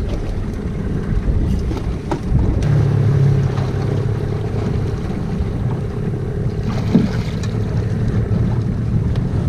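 Small boat's motor running steadily, with wind buffeting the microphone; the motor's low hum grows a little stronger about two and a half seconds in, and there are a few light knocks.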